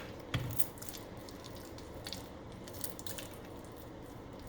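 Sticky homemade glue slime being squeezed and kneaded by hand, making small wet clicks and squelches, busiest in the first second. The mix still feels like runny glue, not yet set.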